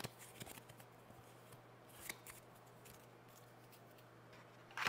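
Faint rustling and sliding of a stack of game cards being handled and set into a plastic box insert, with a sharper scrape or tap near the end.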